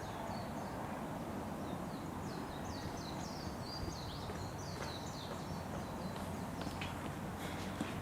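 Outdoor street ambience: a steady low background hum, with a flurry of short high bird chirps through the first half, then a few light taps near the end.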